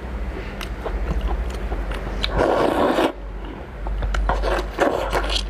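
Close-up eating sounds of someone chewing raw lobster: small clicks and wet mouth noises, with a louder noisy stretch of under a second about two seconds in and a shorter one near the end.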